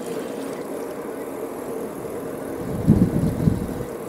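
Bicycle rolling along a smooth asphalt road: a steady hum and rushing noise of tyres and riding, with a brief louder low burst about three seconds in.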